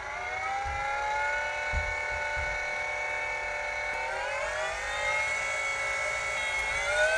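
Molar X2 electric coffee grinder's slow-turning motor running with a steady whine at its lowest speed, 40 RPM. The pitch steps up about four seconds in and again near the end as the speed is switched higher.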